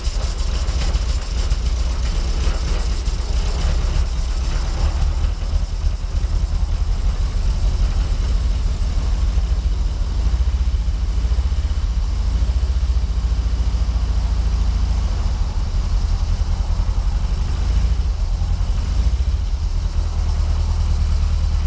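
1952 Fordson E83W pickup's 1172 cc side-valve four-cylinder petrol engine idling, running on its first start after more than four years laid up.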